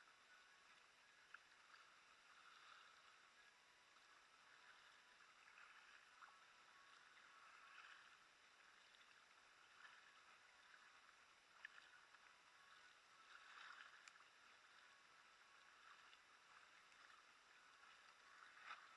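Faint water sounds from a kayak underway: soft splashes of paddle strokes swelling every two to three seconds, with water lapping at the hull and a few small clicks.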